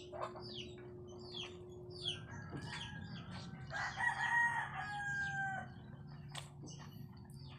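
A rooster crows once, a long call of about three and a half seconds through the middle, over repeated short chirps of small birds and a steady low hum.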